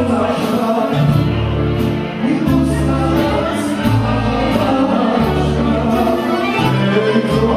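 Live band music: a man singing into a microphone with accordion and saxophone, over a bass line and a steady beat.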